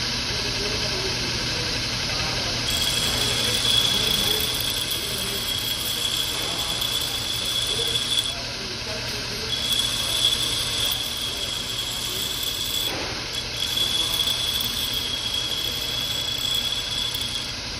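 Bench grinder running with a steady hum while the tip of a worn steel punch is ground against the stone wheel to re-dress its point. A high, steady squeal starts a few seconds in and breaks off briefly a few times.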